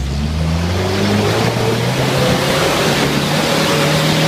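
Toyota Land Cruiser LJ's four-cylinder diesel engine held at high revs under load as the 4x4 climbs a steep muddy gully close by, with a loud rushing noise over it.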